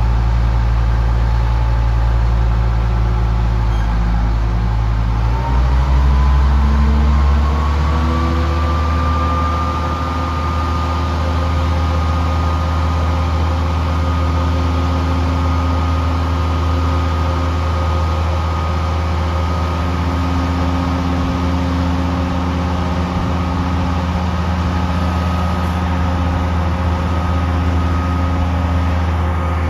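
Terex RT 175 rough terrain crane's diesel engine running, speeding up between about four and ten seconds in and then holding a steady higher speed with a thin whine over it, as the hydraulics swing, raise and extend the boom.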